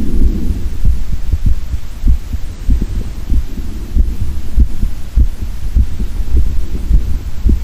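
A man's heart beating, picked up through a stethoscope linked to a microphone: repeated short, low thumps over a steady low hum.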